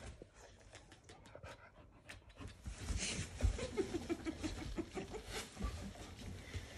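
Pit bull-type dog licking a person's face: wet licking smacks and panting, with a quick run of short pitched huffs near the middle.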